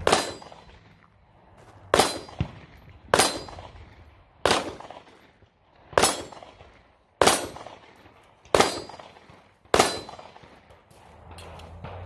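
Eight pistol shots from a Glock 17, fired at an even pace of about one every second and a half, with steel silhouette targets clanging when hit.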